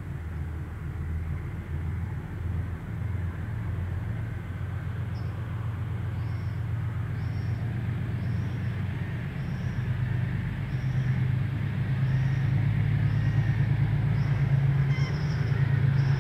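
KiwiRail diesel-electric locomotive working hard under full power, growing steadily louder as it approaches, its engine note stepping up a little about two-thirds of the way through. A faint high chirp repeats about once a second from about a third of the way in.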